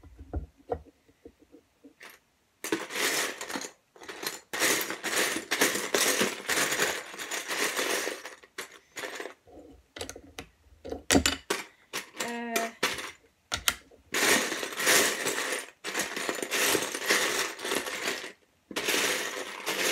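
Loose plastic LEGO bricks clattering and rattling as a hand rummages through a plastic bin of pieces, in several long bouts with short pauses between.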